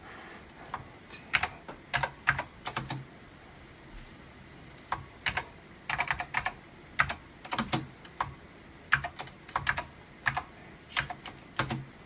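Typing on an Apple Extended Keyboard II with Alps key switches: irregular keystroke clicks in short runs, with a pause of a couple of seconds about three seconds in.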